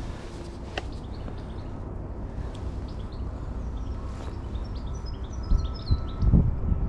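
Small songbirds twittering: a run of quick, high chirps in the second half, over a low wind rumble on the microphone.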